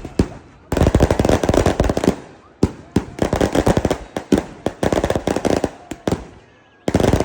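Firecrackers going off in rapid crackling runs of many sharp bangs, three runs of one to two seconds each with short lulls between.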